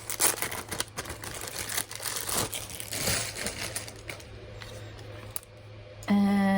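Light clicking and crinkling of a small keychain accessory and its packaging being handled, busiest in the first few seconds, under a faint steady electrical hum. Near the end a woman starts a steady hummed "mmm".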